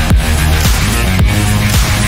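Loud background music with a steady thumping beat, about two beats a second, over sustained bass notes.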